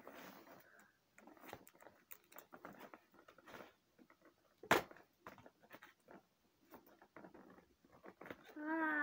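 Cardboard box being handled and picked at to get through its packing tape: scattered scratches, rustles and small clicks, with one sharp click about five seconds in. A short pitched voice-like sound near the end.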